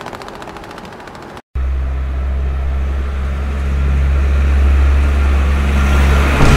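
A large vehicle's engine running with a low, steady drone. It starts about a second and a half in after a short dropout and grows louder toward the end.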